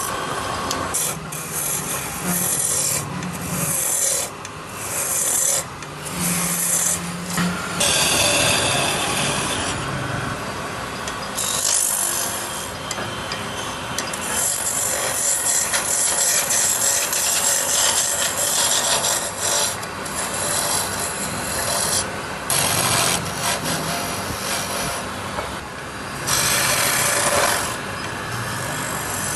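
Woodturning tool cutting wood on a lathe: a hissing scrape that comes and goes in stretches of a second to several seconds, over a low hum.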